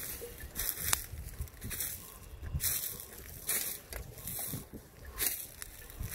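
Footsteps in dry fallen leaves, a crunch about once a second in a steady walking rhythm.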